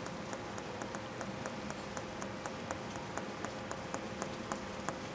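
Light, rhythmic tapping on glass, about three taps a second, over a steady hum.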